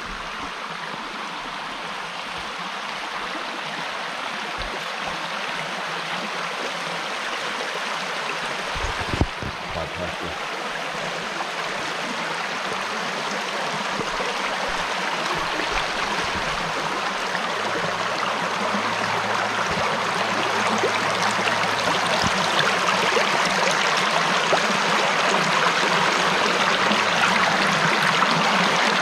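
Shallow creek water rushing over rocks in a riffle, a steady rush that grows louder and louder. A single short knock about nine seconds in.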